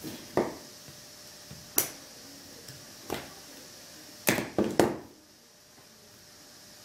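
Waxed thread being pulled through stitching holes in leather during hand stitching: about six short, sharp pulls, the last three in quick succession just after the middle.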